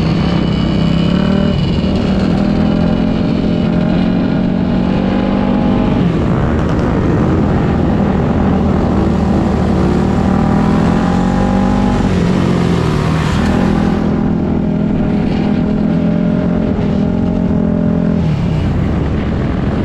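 Small motorcycle engines running during a group ride, the nearest bike's engine note loud and steady. Its pitch changes and drops a few times as the throttle is eased and opened again.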